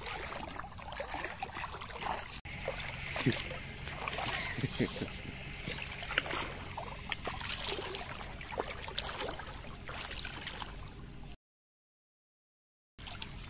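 Bare feet wading through shallow water, with irregular sloshes and small splashes. The sound cuts out completely for about a second and a half near the end.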